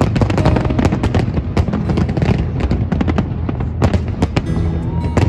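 Aerial fireworks shells bursting, many bangs and crackles in quick succession with no pause.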